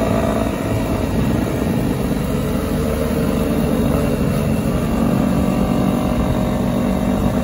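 Dirt bike engines running steadily at cruising speed, heard from on board one bike, with a second bike riding just ahead.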